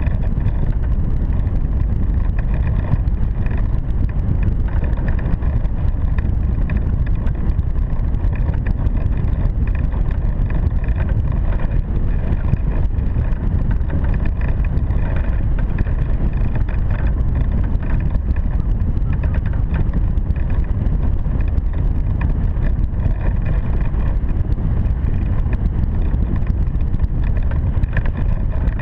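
Wind rushing over the microphone of a camera mounted on a hang glider in flight: a steady, loud low rumble that never lets up.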